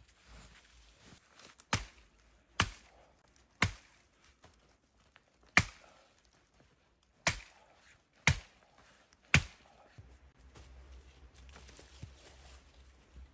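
Wood being chopped: seven sharp single strikes at uneven intervals of one to two seconds.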